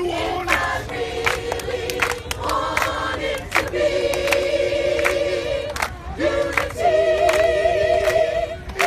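A choir of men and women singing together in long held notes, clapping along in time. There is a brief break between phrases about six seconds in.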